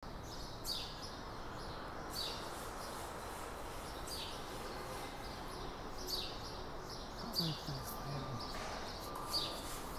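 A small bird chirping repeatedly, a short sharp chirp about every one and a half to two seconds, over a steady hum of background noise.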